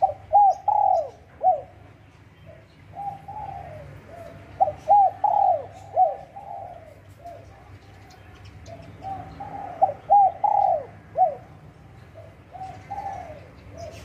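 Spotted dove cooing its song in repeated phrases, three main bouts with short pauses between them and a shorter phrase near the end.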